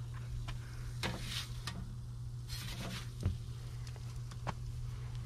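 Handling noise: a few light scrapes and sharp knocks over a steady low hum.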